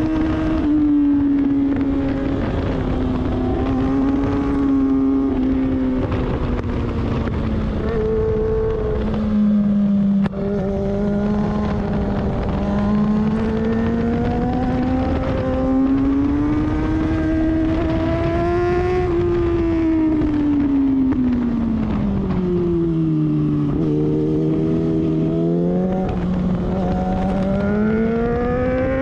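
Sport motorcycle engine under way on a track lap, its pitch rising and falling with road speed as it accelerates and slows. Its sound dips briefly about ten seconds in, falls steeply about two-thirds of the way through, then climbs again near the end, over a steady low rush of wind.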